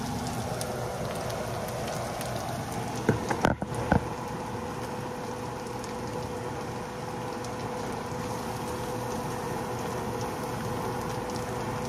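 Breaded pork chops frying in hot oil in a skillet: a steady crackling sizzle, with a few brief knocks about three to four seconds in.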